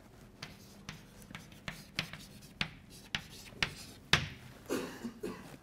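Chalk writing on a blackboard: a series of short, sharp taps and light scrapes as each stroke is made.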